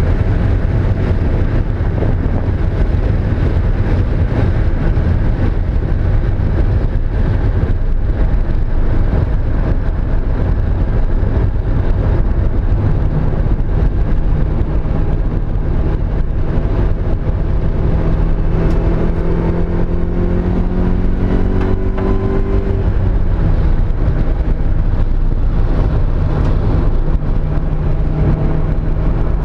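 Mazda Miata's four-cylinder engine running hard under load with a misfire on cylinder 2, over a dense rumble. Its pitch climbs steadily for about ten seconds midway, drops suddenly, then holds steady near the end.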